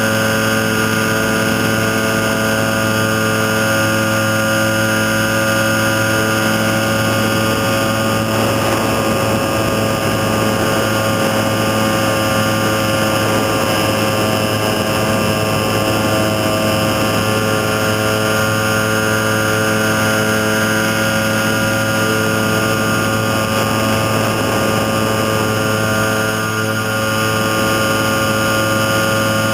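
Nanolight trike's small engine and pusher propeller running at a steady cruise throttle in flight, holding an even pitch. The level dips briefly near the end.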